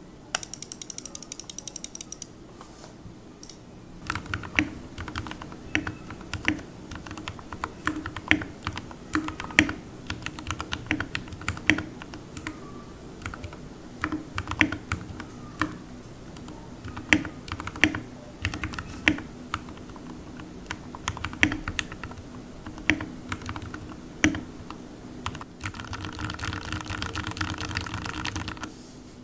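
Typing on a GK64 custom mechanical keyboard fitted with lubed Gateron black linear switches, clipped and lubed stabilizers and foam in the case. It starts with a quick run of keystrokes, goes on as irregular key presses with some much louder strikes, and ends in a denser steady run of typing.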